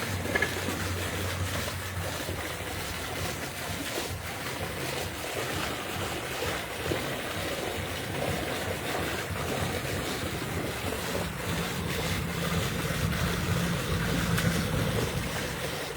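Steady rushing background noise, with a faint low hum near the start and again in the second half.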